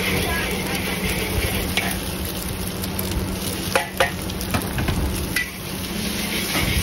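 Egg and prawns sizzling in a hot wok while a metal spatula stirs and scrapes against it. About four seconds in come two sharp clanks as yellow noodles are tipped in and stirred into the oil.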